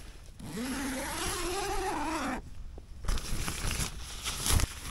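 Tent door zip pulled open in one long rasp of about two seconds that rises and then falls in pitch, followed by rustling and sharp knocks of someone moving out through the doorway.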